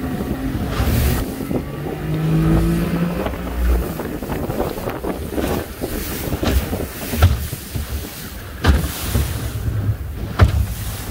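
Outboard motor driving a small fiberglass fishing boat through choppy sea, with water rushing along the hull and wind on the microphone. The hull slaps down on waves several times, the hardest knocks a little past halfway and near the end.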